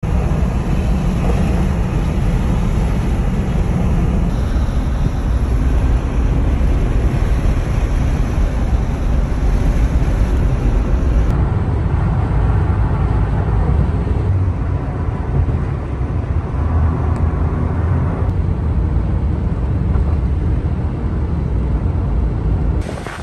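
Steady road and tyre noise heard inside a car cabin at freeway speed: a continuous, even rumble, heaviest in the low end, that changes character abruptly a couple of times partway through.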